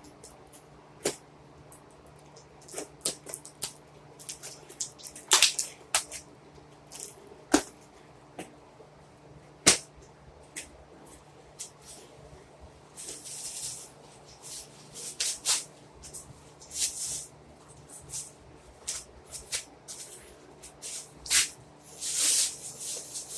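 Toy packaging being opened by hand: scattered sharp plastic clicks and cracks, with short rustling, tearing bursts in the second half.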